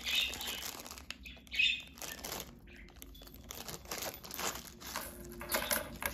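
Thin plastic zip-lock bag rustling and crinkling in the hands as it is opened and the small acrylic keychain pieces inside are pulled out, with irregular crackles and one louder rustle about a second and a half in.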